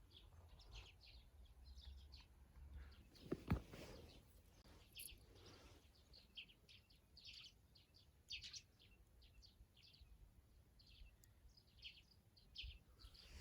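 Faint small-bird chirps, short calls repeated on and off, with a single sharp click about three and a half seconds in.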